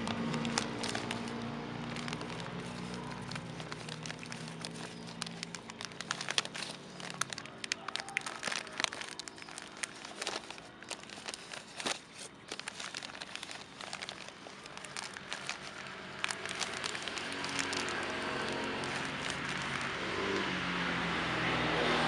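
Clear plastic grafting bag crinkling and crackling as it is handled and tied over the scion, in quick irregular rustles through the middle. An engine-like motor hums in the background at the start and again near the end.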